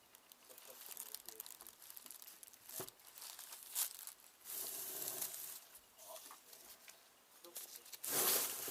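Rustling, crinkling handling noise with a couple of sharp clicks, growing louder near the end.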